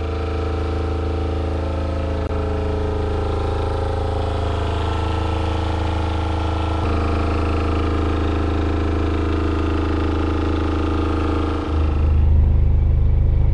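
Fischer Panda marine diesel generator running at a steady speed, a constant engine drone. About twelve seconds in the hum becomes heavier and lower.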